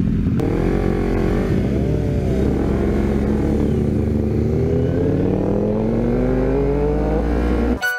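Sport motorcycle engine pulling away from a stop, with the pitch rising and falling at first and then climbing steadily under acceleration. Near the end it cuts off abruptly into piano music.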